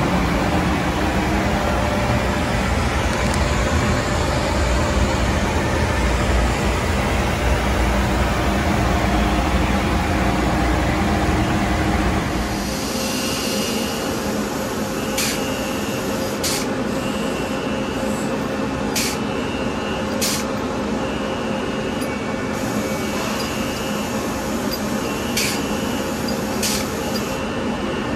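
Factory machinery noise inside an automated production cell. A loud low rumble, then about twelve seconds in a steadier hum with a faint whine, short high hisses that come and go, and sharp clicks every second or two.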